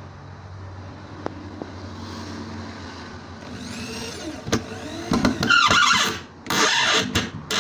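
A power tool whining and working in bursts over a low steady hum, with two loud bursts of cutting noise about five and six and a half seconds in and a brief one near the end.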